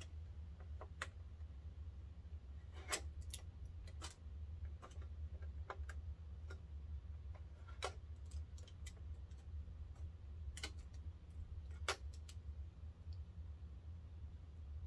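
Irregular small clicks and ticks of fingernails picking tape off the plastic embroidery arm of a Brother SE350 embroidery machine, over a steady low hum.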